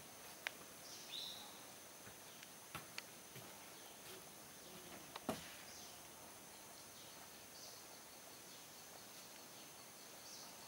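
Faint forest ambience: a steady high-pitched insect drone, a few soft bird chirps, and a handful of sharp clicks in the first half, the loudest about halfway through.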